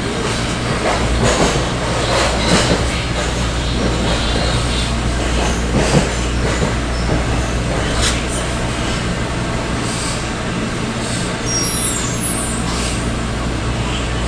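Heavy vehicle noise: a steady low engine hum with street noise, and a few short knocks about two, six and eight seconds in.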